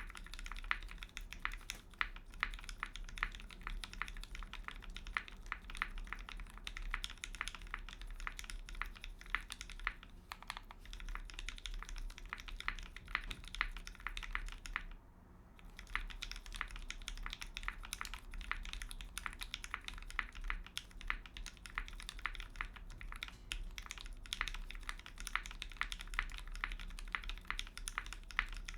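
Continuous typing on a TGR x Singa Unikorn mechanical keyboard, heard as a dense stream of keystroke clacks. The board has a brass plate, no sound dampening, lubed Gateron Black Ink linear switches and GMK keycaps. The typing stops for about a second about halfway through.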